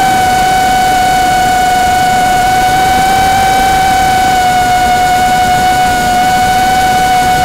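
Electric motor and propeller of a small radio-controlled FPV aircraft, heard up close through its onboard camera: a loud, steady whine whose pitch holds nearly constant at cruising throttle.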